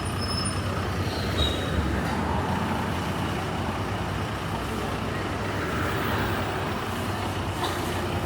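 City street traffic: vehicle engines running with a steady low hum.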